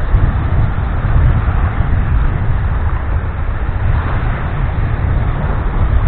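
Black Sea surf washing in over a sandy shoreline, with wind buffeting the microphone in a heavy, gusty low rumble. The wash of the waves swells and falls, rising most around the middle.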